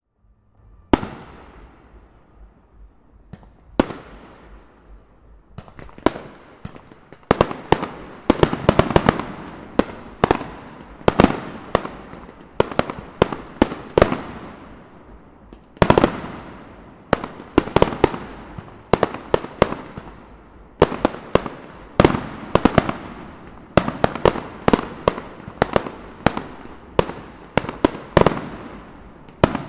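Fireworks bursting overhead: sharp bangs that each trail off, a few spaced ones at first, then coming thick and fast from about seven seconds in, with crackling between them.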